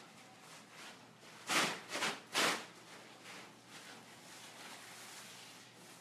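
Rustling of a paper drape being shaken out and spread, with three short loud crinkles about a second and a half in and over the next second, then faint handling noise.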